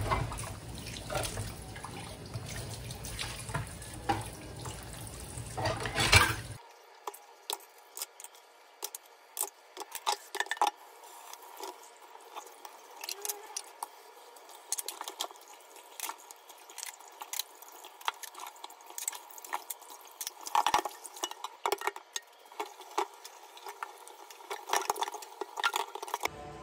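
Kitchen tap running into a stainless steel sink while dishes are washed by hand, with frequent clinks and knocks of plates, bowls and utensils. The water sound changes abruptly about six seconds in, losing its low rumble and turning lighter.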